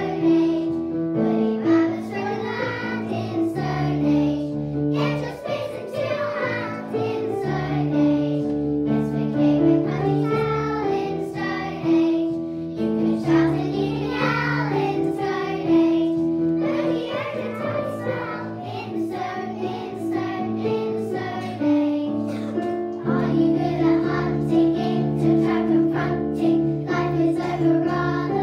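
A group of young schoolgirls singing a song together over musical accompaniment.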